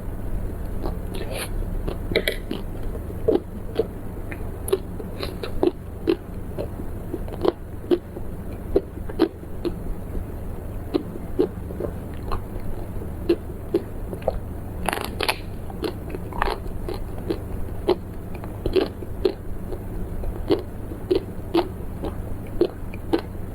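Close-miked eating: irregular crisp crunches and chewing of crunchy food, one or two sharp crunches a second with a quick flurry about fifteen seconds in, over a steady low hum.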